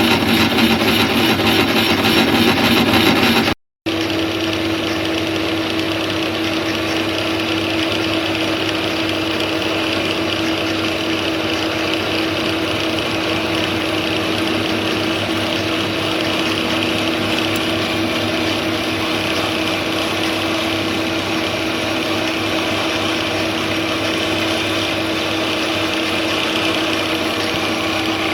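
An electric machine-tool motor running steadily. It cuts off briefly a little under four seconds in, then runs on at an even pitch with a constant hum.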